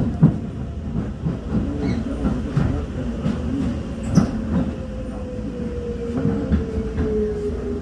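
Docklands Light Railway train running, heard from inside the car: a low rumble with wheel clicks and a sharp knock about halfway through. A motor whine falls slowly in pitch through the second half as the train slows into a station.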